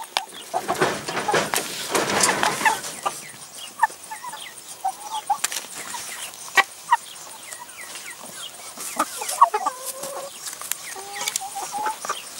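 Hens clucking softly while they feed, with many sharp pecking taps as they peck chopped red peppers from a tray. A louder rustling scuffle about a second in lasts a couple of seconds.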